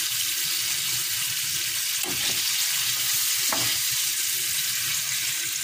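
Flour-coated chicken pieces frying in hot oil in a pan, a steady sizzling hiss. A spoon turns the pieces, with a couple of soft knocks about two and three and a half seconds in.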